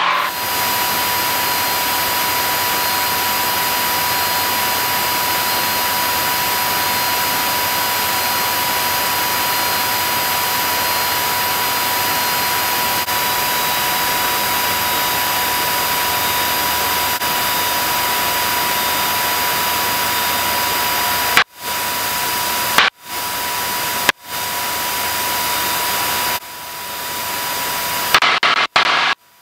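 Steady, loud cabin noise of a single-engine propeller airplane in cruise: an even engine-and-propeller hiss with no change in pitch. Near the end the sound cuts out abruptly about five times, coming back each time.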